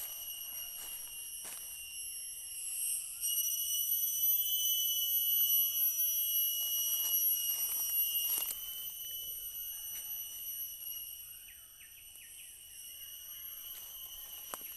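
Steady high-pitched drone of night insects, swelling louder from about three seconds in and easing off after about eight seconds, with scattered rustles of footsteps through leaf litter and undergrowth.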